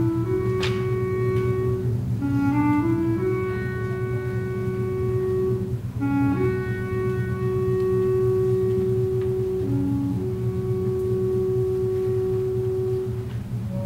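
Symphony orchestra playing a slow passage of long held notes that step from one pitch to the next over a steady low accompaniment, with a single sharp tick about a second in.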